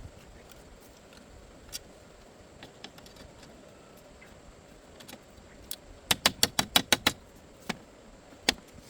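Sharp knocks: a few scattered ones, then a quick run of about eight in a second, about six seconds in.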